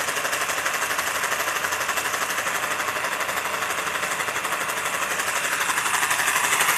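Kharra (mawa) mixing machine running on its Crompton brush motor, spinning its ribbed plastic cup with a fast, steady rattle that grows a little louder near the end, while it mixes a single portion of mawa.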